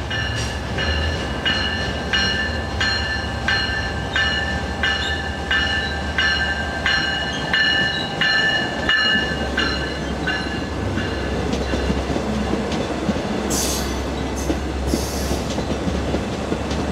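Long Island Rail Road diesel train rolling through the station. Its wheels clack in a steady rhythm of about two a second with a high metallic ringing, over a constant low rumble. The ringing fades about ten seconds in, and a few short hisses follow near the end.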